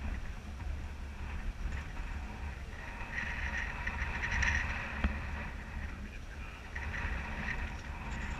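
Motor yacht under way at slow speed: a steady low rumble, with a hiss of water and wind that swells about three seconds in and again near the end.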